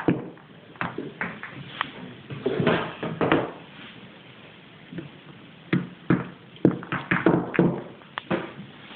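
Billiard balls knocking and clacking together at irregular moments as a kitten paws at them, with some short rolling knocks between the sharper clicks.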